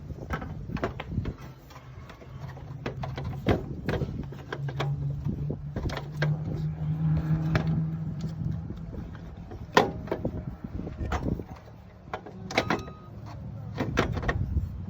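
Scattered metallic clicks and knocks of hand tools and parts as a replacement alternator is fitted into a car's engine bay, with a low steady hum for several seconds in the middle.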